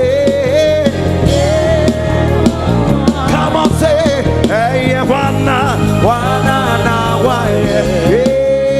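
Live gospel worship music: a band playing with singers carrying a melody and a full bass underneath.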